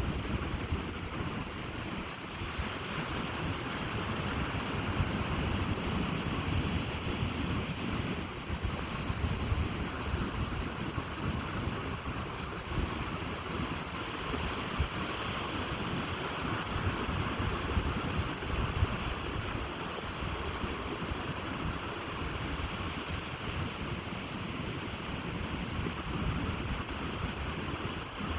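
Ocean surf washing onto a beach in a steady, continuous roar of water, with wind gusting against the microphone and rumbling in the low end.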